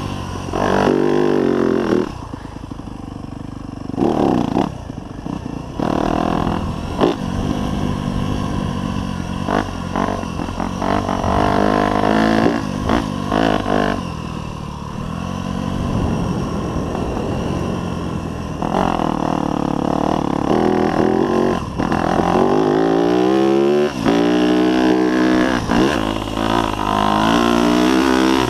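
2024 Yamaha YZ250F's 250cc four-stroke single-cylinder engine on a ridden dirt bike, revving up and falling back over and over as the throttle is opened and closed, with several brief dips in engine note as the throttle is chopped.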